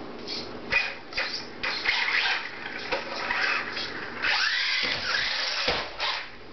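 Brushless electric motor of a Traxxas Rustler VXL radio-controlled truck whining in several throttle bursts, with a rising-then-falling whine about four and a half seconds in.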